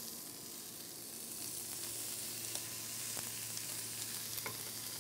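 Wild boar strips frying in a wok with a weak, quiet sizzle and a few faint clicks. The sizzle is low because there is little oil in the wok and it has lost heat from being moved.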